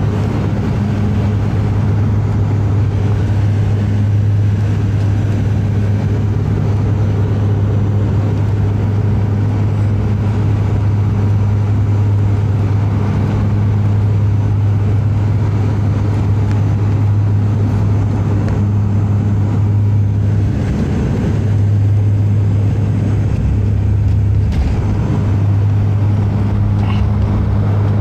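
Cabin sound of a Bombardier Q400's Pratt & Whitney PW150A turboprops with their six-blade propellers, a steady low drone over a dense rumble. About three-quarters of the way through the drone wavers, and a low rumble and a knock come as the aircraft touches down and rolls out on the runway.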